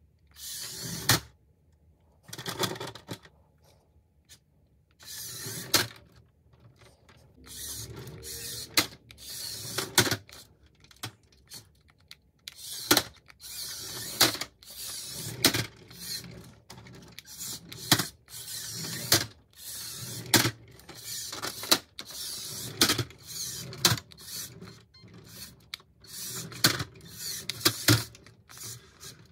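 Little Tikes Tire Twister remote-control car's small electric motors whirring in repeated short bursts, each as a button on the remote is pressed. Its plastic wheels clatter and knock inside the plastic tyre wheel. The bursts come a few seconds apart at first, then nearly every second.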